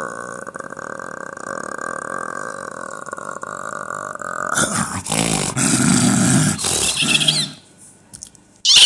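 A man imitating animal noises with his mouth: a long, steady throaty sound, then a louder, rough outburst lasting about three seconds, and a short burst at the very end.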